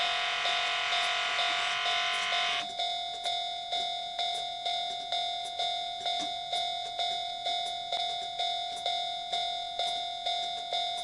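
Model railroad crossing warning signal ringing steadily at about two strikes a second. A denser, higher ringing layer stops suddenly about two and a half seconds in.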